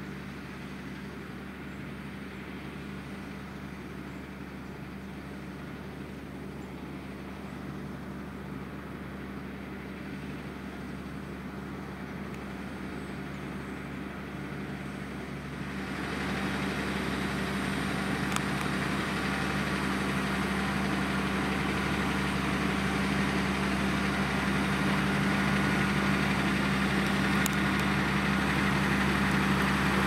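Valtra T174 tractor's six-cylinder diesel engine running steadily under load, pulling a five-furrow reversible plough. It grows louder as the tractor approaches, with a step up about halfway through.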